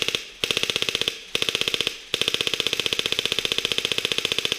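Airsoft electric rifle firing full-auto, its motor and gearbox buzzing with about fifteen shots a second: a short burst ending just after the start, two more short bursts, then one long continuous burst from about two seconds in.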